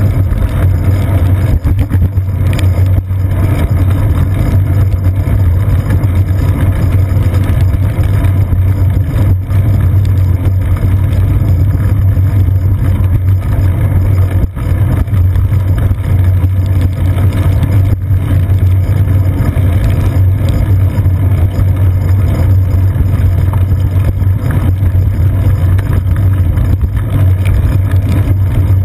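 Steady low rumble of a bicycle ride on a wet paved path, picked up through a seat-post-mounted GoPro Hero 2 in its housing: road vibration and wind on the camera case.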